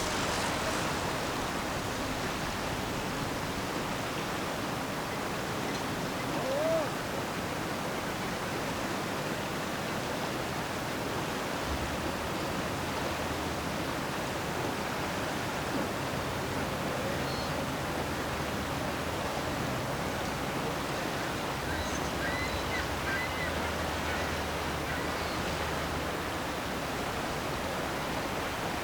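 Steady rush of moving river water, with a low drone coming in about twelve seconds in and a few faint, brief high chirps.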